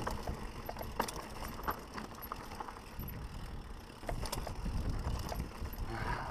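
Mountain bike riding fast downhill over rocky dirt singletrack: a low rumble from the tyres and frame, with scattered clicks and knocks as the bike jolts over rocks and ruts.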